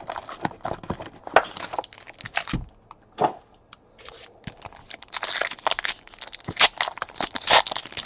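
Trading card packs pulled from a cardboard hobby box and set down on the table, then a pack's wrapper crinkling and tearing as it is ripped open, busiest from about five seconds in.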